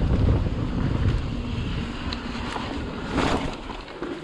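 Wind buffeting the microphone over the low rumble of a mountain bike rolling along a dirt trail, with a short rough scrape about three seconds in as the tyres meet the rock.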